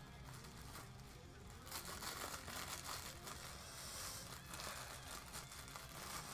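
Rustling and crinkling handling noise from a person settling back into the chair in front of the microphone, starting about two seconds in.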